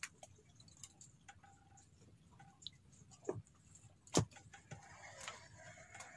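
Scattered light clicks and taps, with one sharp knock about four seconds in.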